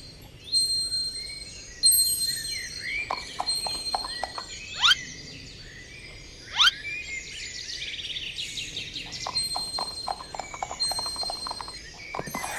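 Cartoon magic sound effects: high sparkling chime tones and quick twinkling chirps, with two loud rising zips about a second and a half apart near the middle.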